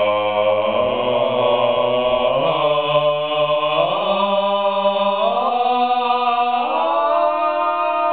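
Several men singing a cappella in close harmony, holding long chords that step upward to a new chord about four times.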